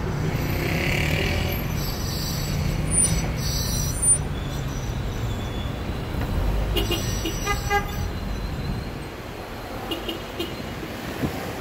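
Road traffic: car engines running with a steady low rumble, and a car horn sounding briefly about seven seconds in.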